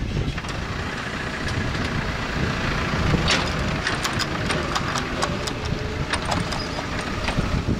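A vehicle engine running steadily, with light rattling and clicking over the low rumble.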